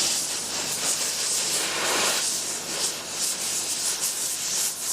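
Hydrogen-oxygen torch flame hissing steadily, with a brief fuller rush about two seconds in.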